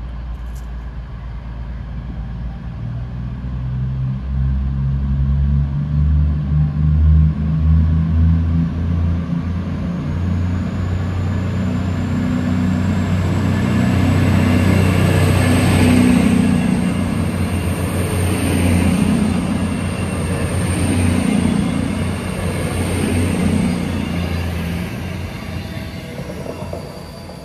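CrossCountry Class 221 Super Voyager diesel-electric multiple unit running into the platform and slowing to a stop, its underfloor diesel engines giving a deep drone. A thin high whine rises in pitch partway through, then holds steady as the train comes to rest.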